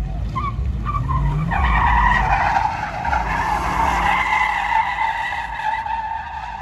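A car's engine revs up, and about a second and a half in its tires break into a long, steady squeal as the car spins its wheels, over the engine's low rumble.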